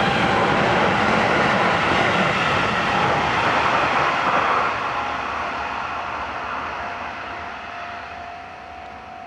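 Shin-Keisei electric commuter train running along the track, the steady noise of its wheels on the rails loud at first. After about four and a half seconds it fades away as the train runs off, leaving a faint steady whine.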